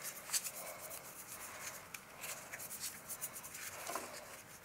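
PVC primer dauber scrubbed around the inside of a plastic pipe fitting: faint, irregular scratching and rubbing.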